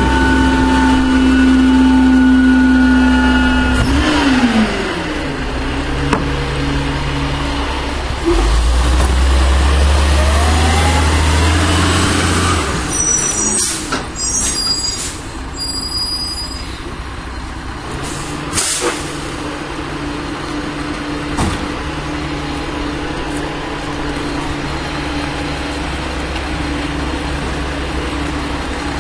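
1996 Volvo WX64 garbage truck's diesel engine held at high revs, dropping sharply about four seconds in, then revving up again for a few seconds. Around the middle comes a burst of sharp clicks and hissing, after which the engine settles to a steady idle.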